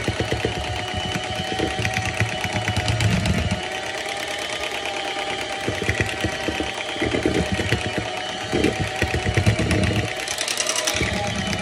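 Electric hand mixer running steadily, its beaters whipping cake batter in a bowl: a fast motor buzz with a steady whine that wavers a little in pitch.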